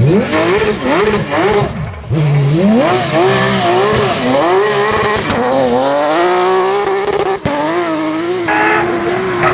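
Porsche rally car's flat-six engine revving hard, its pitch rising and dropping again and again through quick gear changes and throttle lifts. It briefly lets off about two seconds in, then climbs from low revs through several gears.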